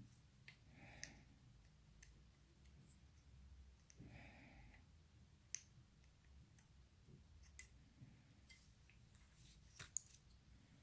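Near silence with scattered faint, sharp clicks of small metal repair tools handling an iPhone 6's internal parts.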